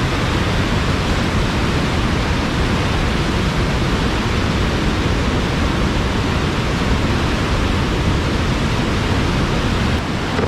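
Steady, loud rush of whitewater on a river running high, heard close from a kayak.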